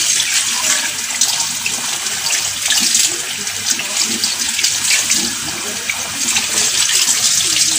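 Kitchen faucet running steadily into a sink as a whole tilapia is rinsed and rubbed by hand under the stream, the water splashing off the fish and hands.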